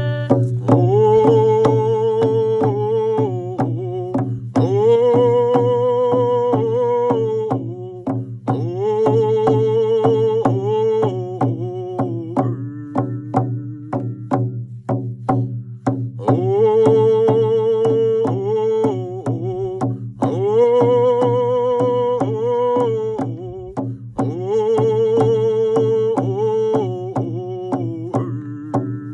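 Hand drum song: frame drums struck with beaters at a steady beat of about two strokes a second while a voice sings repeated phrases with vibrato, each held a few seconds and separated by short breaks. A steady low hum runs underneath.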